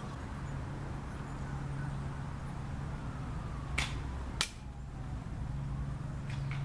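Spring-powered FAMAS airsoft rifle being fired: two sharp snaps a little over half a second apart, about four seconds in, over a steady low hum.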